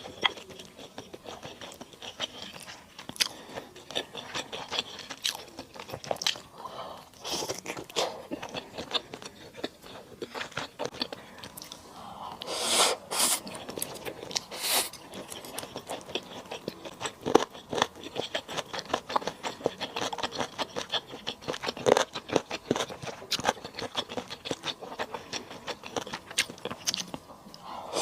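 Close-miked eating of lemon chicken stir-fry: biting and chewing, with many small irregular clicks and a louder stretch of chewing about halfway through.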